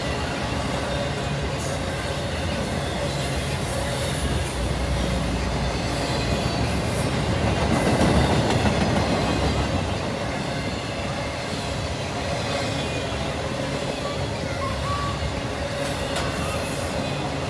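Intermodal freight train cars carrying truck trailers and containers rolling past at speed: a steady rumble and rattle of wheels on rail, briefly louder about eight seconds in.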